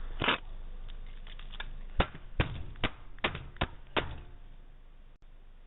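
A string of about seven sharp taps, six of them coming quickly about half a second apart, over a faint hiss. The sound has the muffled, narrow quality of a doorbell camera's microphone.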